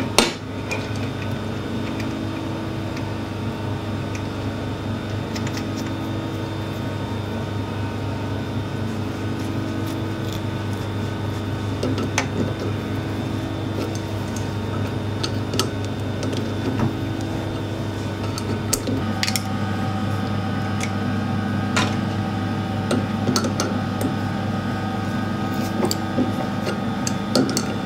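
Steady machine hum with several fixed tones, and over it scattered sharp metal clicks and clinks from a steel nut and adjustable wrench worked on a bolt held in a lathe chuck, more of them in the second half.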